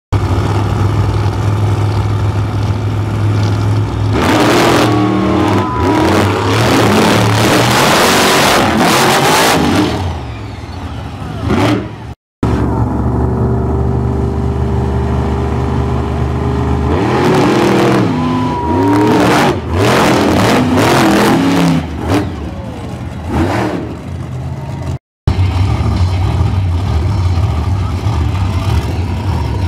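Monster truck engines idling with a steady low rumble, then revving hard twice in long rising and falling bursts, about 4 and 17 seconds in, as trucks launch off the start line.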